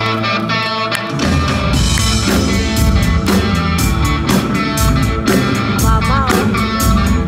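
Live blues-rock band playing: guitar, bass guitar, keyboard and drum kit. Held guitar notes open, then the drums and bass come in about a second in and the full band plays on with a steady beat.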